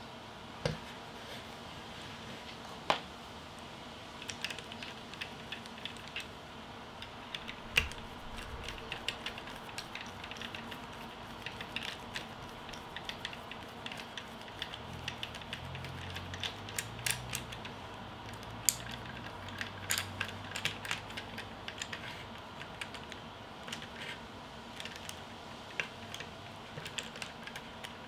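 Scattered small clicks and taps of a screwdriver and metal parts on the inside unit of an ID Lock smart door lock as it is handled and assembled, with a few sharper knocks now and then.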